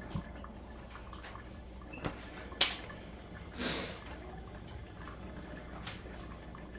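Cuisinart drip coffee maker brewing: a steady low hum with a few sharp ticks, the loudest about two and a half seconds in, and a short hissing puff a little later.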